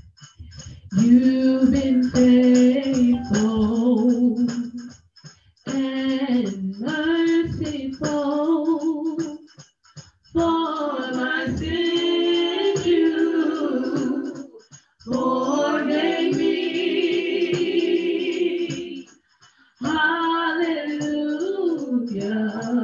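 A woman singing a worship song solo and unaccompanied, in long held phrases with short pauses between them.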